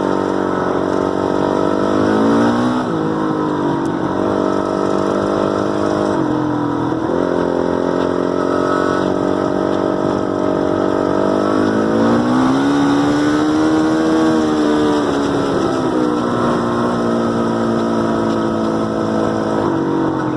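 2006 Honda CRF450R's single-cylinder four-stroke engine running, its pitch rising and falling several times as it is revved, with a high-pitched screech whose source the owner cannot place.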